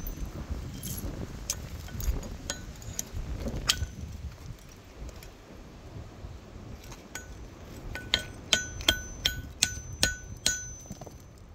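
Hand tool striking lumps of thermite slag and metal on a steel anvil, knocking them apart: sharp, ringing metallic clinks. A few come spaced out in the first four seconds, then a quick run of about eight strikes near the end.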